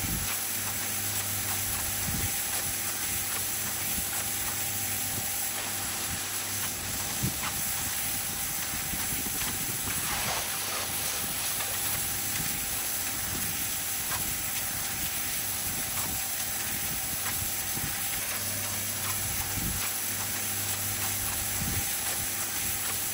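Pressure washer running, its water jet hissing steadily against wet stone patio slabs, with a steady motor hum underneath.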